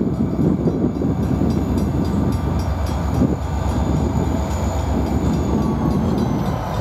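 Passenger train cars rolling past at close range: a steady rumble of steel wheels and trucks on the rails, with a faint high whine that drops slightly in pitch near the end.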